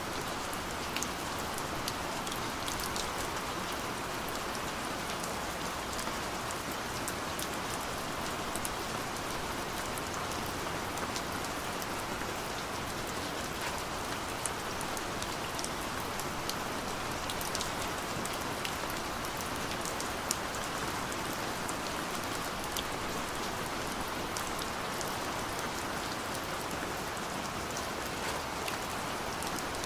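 Steady rainfall on a surface, an even hiss with many small drop ticks, unchanging throughout.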